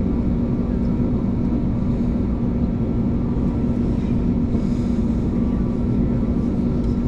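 Steady cabin noise inside an Airbus A321neo, with the engines running at low, unchanging power and a strong steady low hum over an even rush of air.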